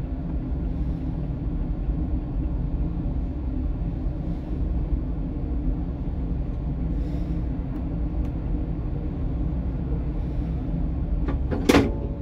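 Steady low rumble and hum heard inside the driver's cab of a standing tram. Near the end comes a single sharp clack, with a few smaller clicks around it.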